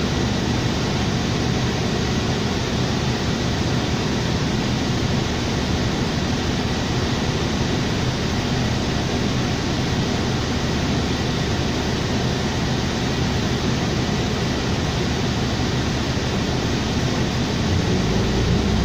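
Steady cabin noise inside a 2007 New Flyer D40LFR diesel low-floor city bus: the engine running under an even hiss of ventilation. The low engine sound grows louder near the end.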